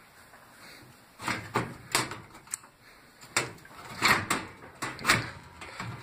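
Sheet-metal blower compartment cover of a gas furnace being worked back into place: from about a second in, an irregular string of knocks, clunks and short scrapes of metal panel on cabinet.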